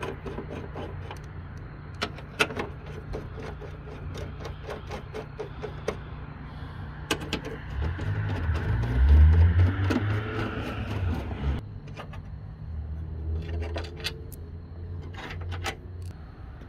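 Sharp, irregular metal clicks and rattles of a 5/16-inch socket driver backing out the bracket screws, over a steady low hum. About eight seconds in, a louder low drone swells and wavers in pitch for a few seconds before settling back to the hum.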